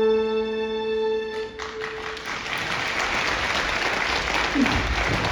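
A song ends on a long held note, and about a second and a half in the theatre audience breaks into steady applause.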